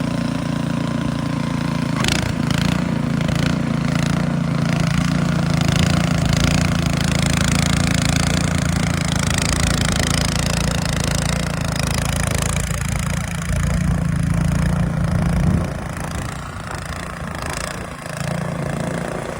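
An engine running steadily at a low, even hum, which drops away about sixteen seconds in.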